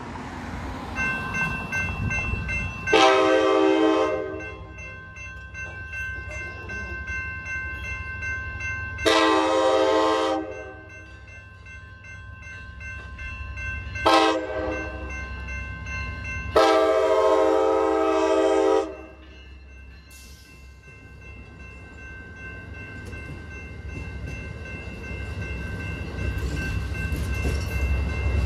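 An Amtrak passenger train's horn sounds the grade-crossing signal (long, long, short, long) over the steady ringing of the crossing's warning bells, which start about a second in. Near the end the rumble of the train rises as its bilevel cars roll through the crossing.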